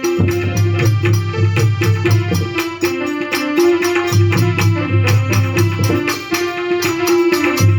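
Gujarati devotional folk music in an instrumental passage: a held melody line over a fast, steady hand-drum beat.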